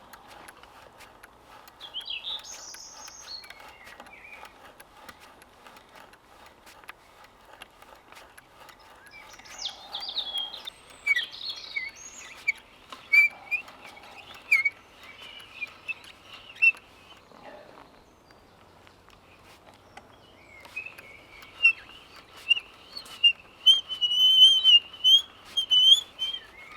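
Wild birds singing: high chirps and warbling trills in three spells, the longest and loudest near the end, over faint scattered clicks.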